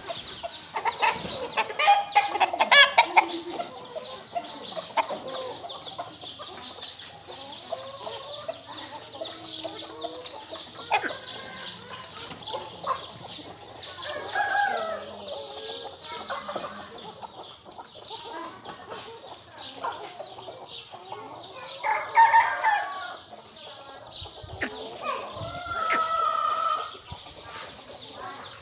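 Aseel chickens clucking and calling in short, scattered bursts, with louder, longer calls about two-thirds of the way through and near the end that sound like a rooster crowing. A steady high-pitched hiss runs underneath.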